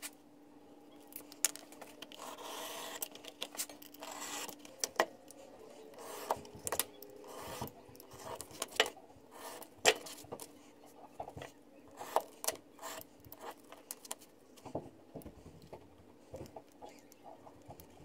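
Leatherworking handling sounds: irregular clicks and taps of tools and leather pieces on a cutting mat and bench, with stretches of scraping and rubbing, the longest a few seconds in.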